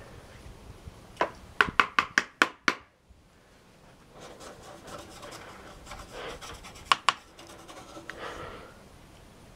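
Hands wiping and handling a plastic computer case: a quick run of sharp knocks and taps about a second in, then a cloth rubbing over the surface, with one more knock near the end.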